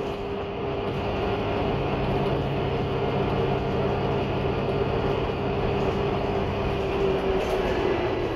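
Gillig Low Floor transit bus with a Cummins L9 diesel engine and Voith transmission running under way, heard from inside the cabin. A steady whine over engine and road noise dips and rises near the end, and a low hum joins about two seconds in.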